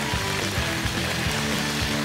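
Television title-sequence theme music, with a steady drum beat over a stepping bass line.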